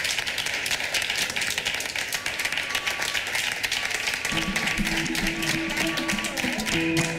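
A small crowd clapping steadily. About four seconds in, music with sustained low notes comes in beneath the applause.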